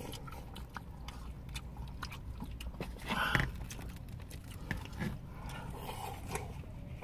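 Close-up eating sounds of sundae gukbap: chewing and slurping, with small clicks of chopsticks and a spoon against plastic bowls and a louder slurp about three seconds in.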